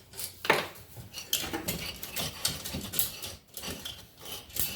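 Metal hand tools and engine parts clinking and knocking together in a quick, irregular series of sharp taps and small scrapes.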